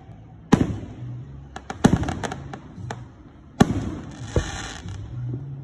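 Aerial firework shells bursting in the sky: three loud bangs about a second and a half apart, with smaller crackling pops between them.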